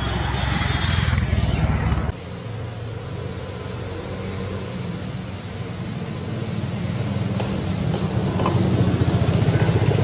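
Insects droning in a steady high buzz over a low rumble. The sound changes abruptly about two seconds in, and after that the insect drone grows gradually louder.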